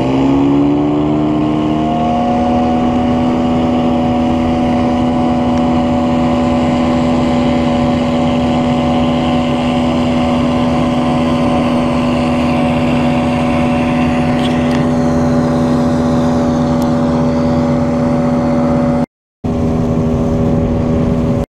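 Boat outboard motor throttling up, its pitch rising over the first two seconds, then running steadily at speed over a steady rush of noise. The sound drops out for a moment near the end.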